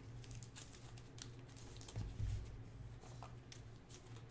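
Faint light clicks and rustles of trading cards and a foil pack wrapper being handled, over a low steady hum.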